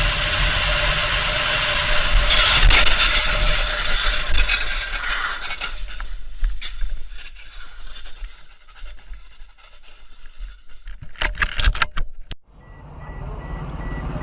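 Car road and engine noise recorded by a dashcam, loudest about two to three seconds in, then dying away. A few sharp knocks follow near the end, then a steady high-pitched beep over engine rumble.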